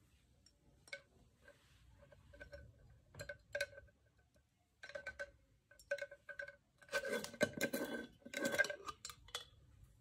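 Glass mason jar mug handled on a hard table: light clinks and taps that ring briefly, then a louder scraping rattle between about 7 and 9 seconds in as its metal screw lid is twisted off the glass threads.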